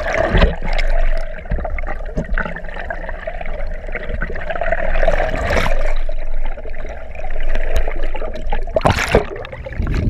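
Water gurgling and sloshing, muffled, heard through an action camera held underwater beside a boat's hull, over a steady hum. About nine seconds in comes a loud splash as the camera is pulled up out of the water.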